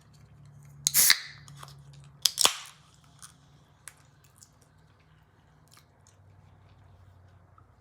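Close-miked eating: two loud, sharp crackling noises about one and two and a half seconds in, followed by soft chewing and small mouth clicks.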